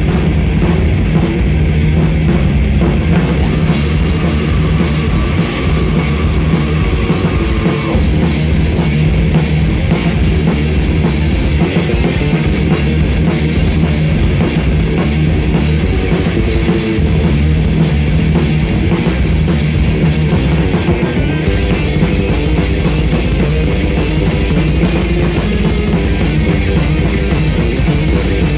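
Live heavy metal band playing a heavy song at full volume, a drum kit with cymbals hammering fast beneath guitars and bass.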